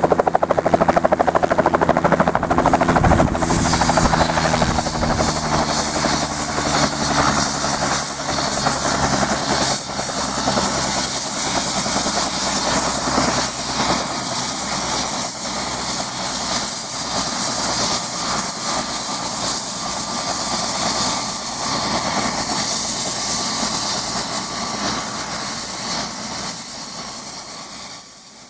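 Bell JetRanger helicopter hovering close by, its turbine and two-bladed rotor running loudly and steadily. The sound changes about three seconds in from a more pitched engine note to a denser rushing, then fades out at the end.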